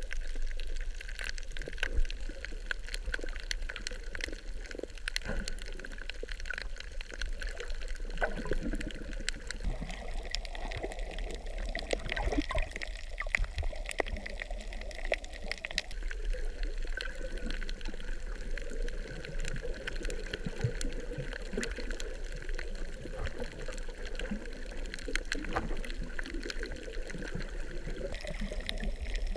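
Water moving around an underwater camera as it swims over a shallow reef: a muffled sloshing and gurgling, with a dense crackle of tiny clicks throughout.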